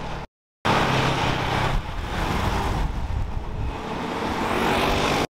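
A sports vehicle's engine being ridden or driven hard through a bend. The sound cuts out briefly just after the start, then comes back loud, eases off a little about a second later, and climbs in pitch as it revs up near the end.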